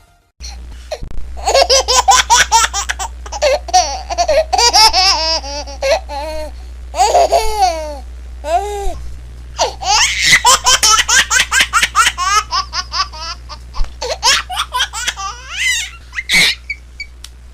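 A baby laughing in long fits of quick, high-pitched laughs, with short breaths and a brief lull partway through, over a steady low hum.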